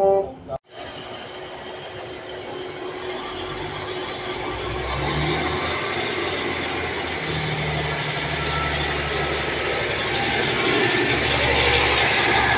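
British Rail Class 150 Sprinter diesel multiple unit heard from on board: its underfloor diesel engines running under power with wheel and rail noise, growing steadily louder. A brief dropout just under a second in.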